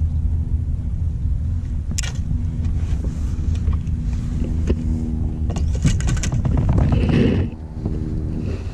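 Wind rumbling on the microphone over choppy water, with several clicks and knocks as a long fishing rod is handled on the kayak.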